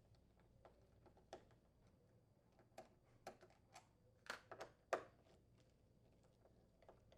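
Faint, scattered clicks and taps of a nut driver on the steel screws of a refrigerator's upper door hinge as they are unthreaded, with a short cluster of louder clicks about four to five seconds in.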